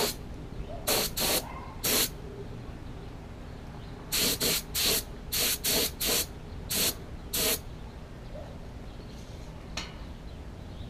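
Paint spray gun hissing in short trigger pulls of about a quarter second each: a few in the first two seconds, then a quick run of about eight between four and seven and a half seconds in, laying a coat on a small part in short passes.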